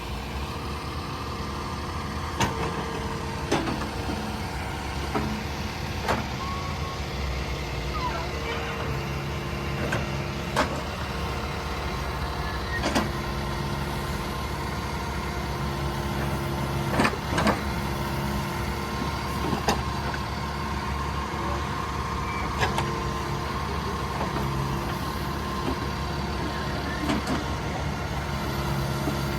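John Deere 310K backhoe's diesel engine running steadily under hydraulic load as the hoe is worked. The tone shifts now and then, and sharp clunks come at irregular moments.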